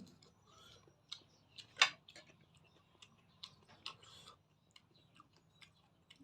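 Mouth sounds of someone eating Maggi noodles: scattered wet clicks and smacks of chewing at an irregular pace, with one louder smack about two seconds in.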